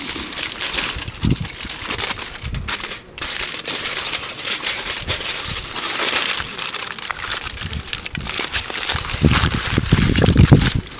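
Aluminium foil crinkling and crumpling as it is folded by hand into a pouch around soaked wood chips, with louder dull thuds near the end as the packet is pressed flat against a wooden board.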